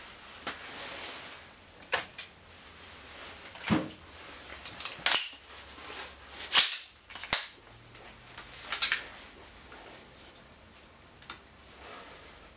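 Paper rustling at first, then irregular sharp metallic clicks and clacks as an M16-style rifle fitted with an under-barrel grenade launcher is handled and taken down for cleaning, the loudest knocks near the middle.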